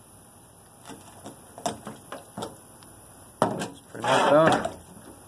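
Several knocks and taps of the rabbit carcass being handled on a plastic tailgate, with a sharp slap about three and a half seconds in. Just after it comes a short wavering voice-like sound.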